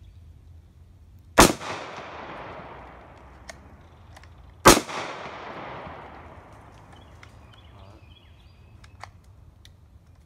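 Two gunshots from a handheld firearm, about three seconds apart, each followed by an echo that dies away over a second or more.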